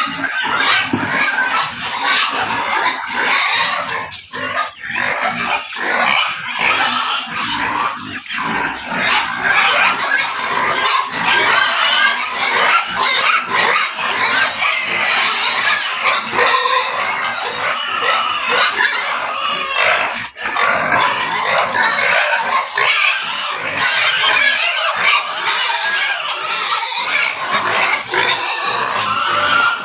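Pigs calling continuously in a loud, dense din of overlapping cries.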